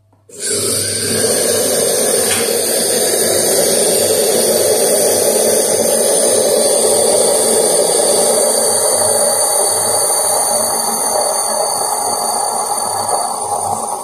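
Small SOWTECH 3.5-bar steam espresso machine letting out steam: a loud, steady hiss with a high whistling tone, starting abruptly just after the start and easing a little near the end.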